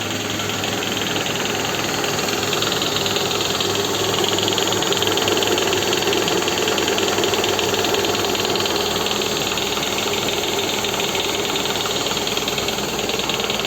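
Toyota 2AZ-FE 2.4 L four-cylinder engine idling with the accessory belt off, with a steady chattering knock from the oil pan. The mechanic puts the noise down to the balance shaft unit in the sump, whose gears turn out to have very large play.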